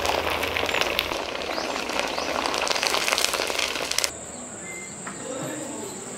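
A large Delhi appalam frying in hot oil in a wide iron kadai: dense sizzling and crackling that stops suddenly about four seconds in. A quieter background follows, with a steady high-pitched whine and faint chirps.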